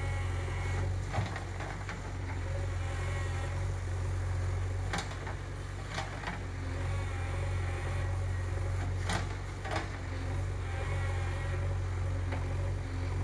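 JCB 3DX backhoe loader's diesel engine running steadily, with several sharp knocks and clanks scattered through it.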